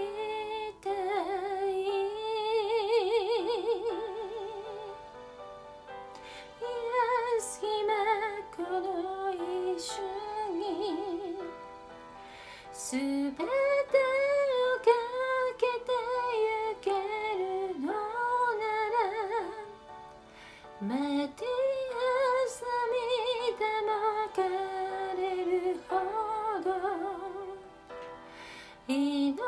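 A woman singing a slow Japanese song in phrases with short pauses between them. About a second in she holds a long note with vibrato.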